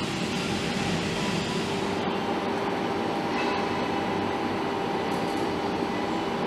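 Turbofan jet engine running steadily: an even rushing noise with a constant whine over it.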